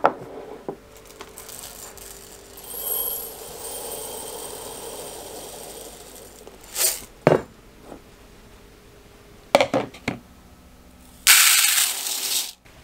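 Kitchen work in a small caravan kitchen: metal and glass utensils and dishes clinking and clattering in scattered knocks. There is a stretch of steady hiss in the first half, and a louder burst of hiss near the end that cuts off suddenly.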